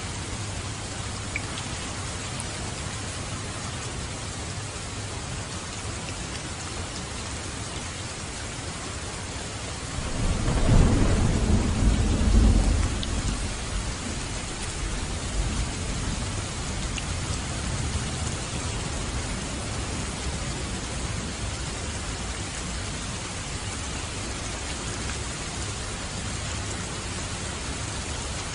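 Steady heavy rain falling, with a rumble of thunder that rises about a third of the way in, peaks for a few seconds and fades away.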